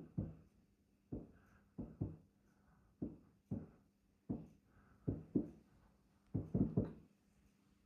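A series of dull thuds, often in pairs, about one to two a second, each dying away quickly, over a faint steady hum.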